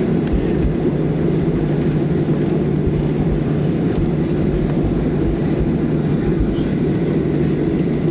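Steady low rumble of a Boeing 737-700's CFM56-7 turbofan engines at taxi power, heard inside the passenger cabin.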